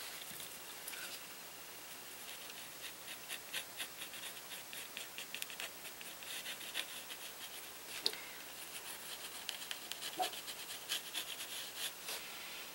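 Mechanical pencil scratching on a painted card in many short, quick strokes.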